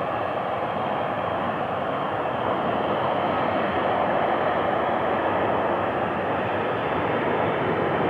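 Steady jet-engine noise from a Southwest Airlines Boeing 737 taxiing, growing slightly louder partway through.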